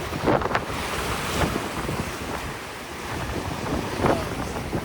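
Wind buffeting the microphone over ocean surf, with a few brief louder gusts.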